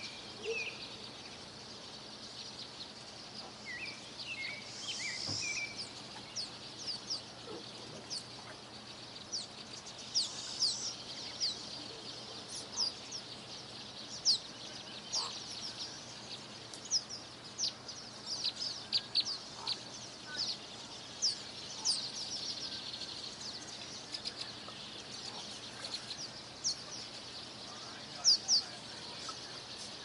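Small birds chirping: a busy scatter of short, sharp, high-pitched chirps, more frequent in the second half, over a steady faint hiss.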